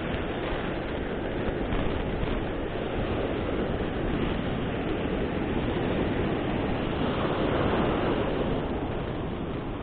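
Ocean surf breaking on the beach: a steady wash of waves that swells louder about three-quarters of the way through.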